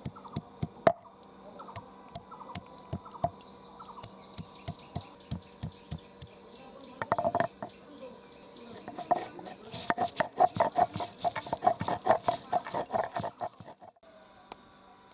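Ginger being crushed and ground on a stone grinding slab with a hand stone (shil-nora): sharp knocks of stone on stone, two or three a second for the first several seconds, then a fast run of grinding strokes from about nine seconds to near the end.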